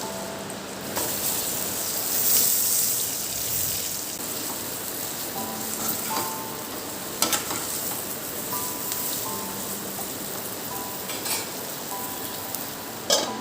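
Food sizzling in a frying pan, with a few sharp clinks of a utensil about seven seconds in and again near the end.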